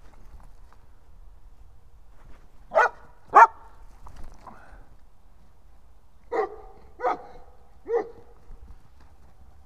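A sighthound barking in play: five short barks, two in quick succession near the start, then three more spaced out later.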